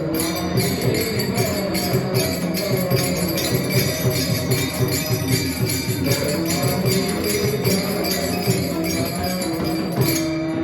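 Kirtan music: small hand cymbals (taal) clashing in a fast, dense rhythm over mridang drumming, with a few held tones.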